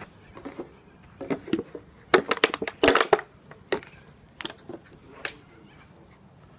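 Empty plastic drink bottle crackling and crunching as a Jack Russell terrier puppy bites and shakes it. The crackles come in irregular bursts, loudest about two to three seconds in, then die away.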